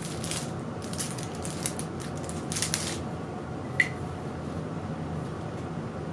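Packaging being handled while a crankset is unwrapped: short bursts of crinkling and rustling, then a single sharp click with a brief ring a little under four seconds in.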